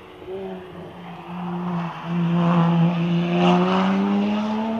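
Rally car engine at full throttle along the stage, getting louder from about two seconds in, with a short break near two seconds, then its pitch climbing steadily as it accelerates.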